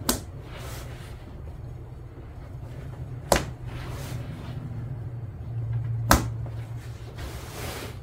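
Three sharp plastic clicks a few seconds apart, the last the loudest, as a seat cover's plastic listing strips are pressed into the plastic clips of a truck seat cushion, over a steady low hum.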